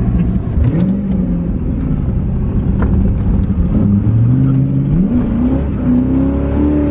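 Car engine revving while driving, its pitch climbing and dropping several times.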